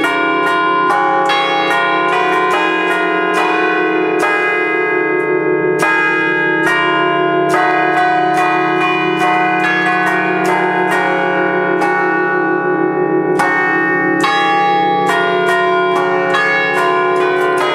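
Five church bells in D-flat, cast by Fratelli Ottolina in 1932, played as a festive tune from a baton keyboard. Strikes come two or three a second, each ringing on and overlapping the next into a steady hum.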